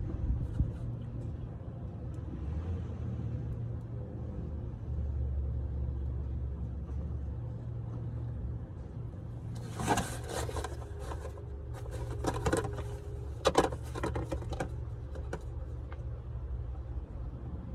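Steady low mechanical hum, broken by bursts of clattering and scraping about ten and thirteen seconds in.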